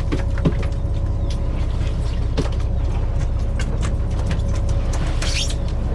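Fishing boat's engine running steadily as a low rumble, with scattered light clicks and knocks and a brief higher hiss about five seconds in.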